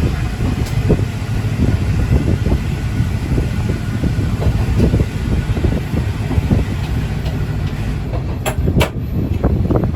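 Ex-JNR KiHa 205 diesel railcar running along the line: a steady low rumble with rapid wheel-on-rail clatter, and two sharp clicks near the end.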